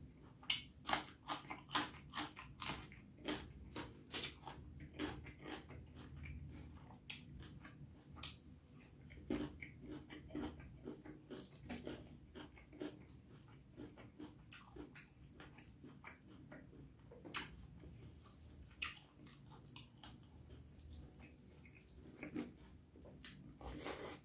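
Close-miked chewing and wet mouth smacks of someone eating beef curry with rice. There are many sharp clicks, rapid for the first few seconds, then scattered, with a loud one near the end.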